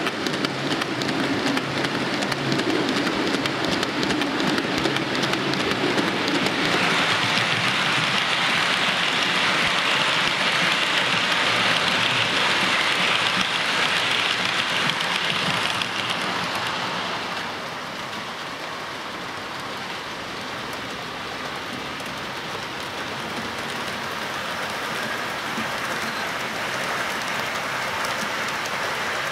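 OO scale model trains running on the layout's track: a steady rush of wheels on rail, with a low hum at first. It grows louder for about ten seconds while an InterCity HST set passes close by, then drops back.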